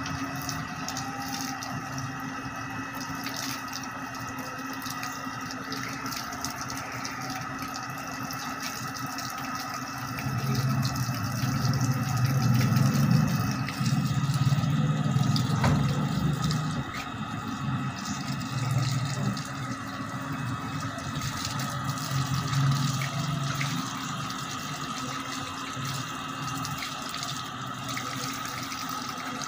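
Running water splashing onto wet paving over a steady hum. A louder low rumble swells from about ten seconds in and fades back by about twenty-four seconds.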